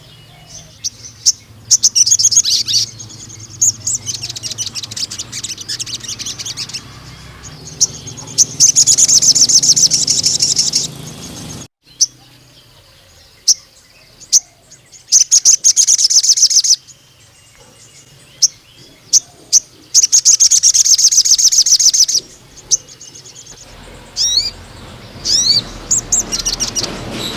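Male crimson sunbird (sogon) singing in long, rapid, high-pitched trilled bursts of one to three seconds each, several times over, with short sharp chirps in between.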